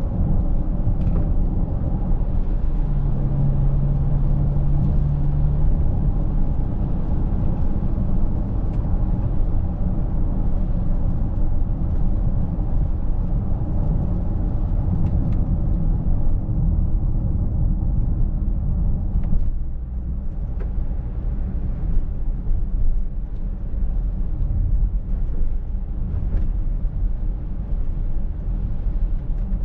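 A 2023 Mercedes-Benz GLC 300de 4Matic plug-in hybrid driving: a steady low road and drivetrain rumble, with a brief steady hum about three seconds in and a drop in level about two-thirds of the way through.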